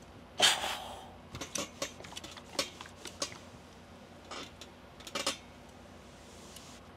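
Clinks and knocks of hard objects handled while ironing: a loud clatter about half a second in, then a run of small sharp clicks and a double knock about five seconds in. A faint hiss comes in near the end.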